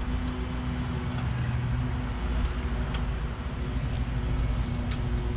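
A steady low mechanical hum, like a motor running nearby, with a few short light clicks and taps of parts being handled as a brake cable is fitted to a push mower.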